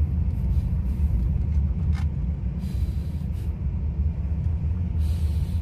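Steady low rumble of a car in motion heard from inside the cabin: engine and tyre road noise.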